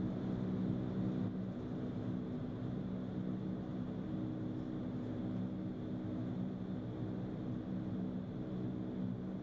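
Indoor vertical wind tunnel running: a steady rushing of air with a low, even hum from its fans.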